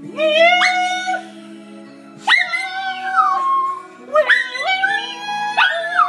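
Small white fluffy dog howling in three long calls, each sliding up and then held, over background music with steady low notes.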